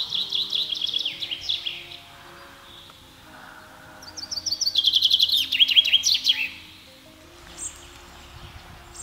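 Common chaffinch singing: two song phrases, one at the start and one about four seconds in, each a quick run of notes falling in pitch. A short high call follows near the end.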